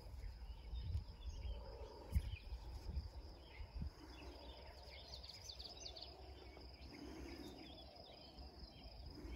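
Faint outdoor ambience: insects keep up a steady high drone, with a low rumble underneath.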